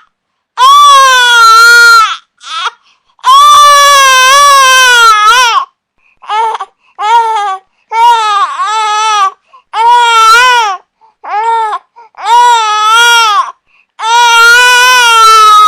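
Infant crying in a string of loud wails, each from under a second to about two and a half seconds long, with a wavering pitch and short breaks between them for breath.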